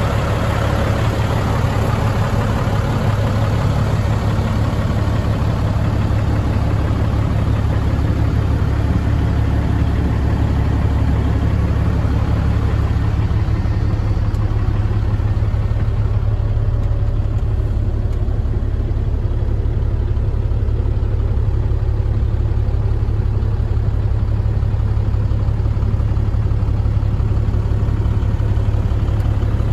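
Heavy truck diesel engine idling steadily with an even low throb. The higher hiss dies down about halfway through, as the idle is heard from inside the cab.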